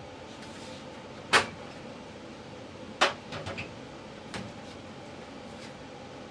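Sharp clacks and knocks as TrueFlow airflow grids are handled and pushed into the return filter slots of the ductwork: two distinct knocks, one about a second and a half in and one about three seconds in, then a few lighter taps, over a steady background hum.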